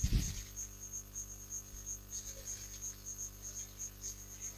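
Insect chirping: a short high-pitched chirp at one steady pitch, repeating about four to five times a second, over a low steady electrical hum.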